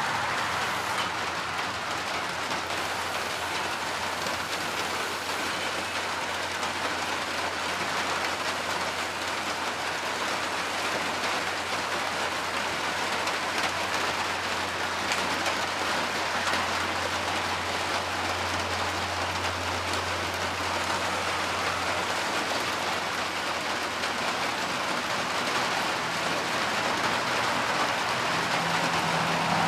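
Steady rain falling, an even hiss, with a low steady hum beneath it that grows stronger through the middle.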